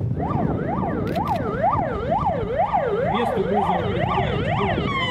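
Fire engine siren sounding in fast up-and-down sweeps, about two a second, then switching near the end to one long falling tone, over a low rumble.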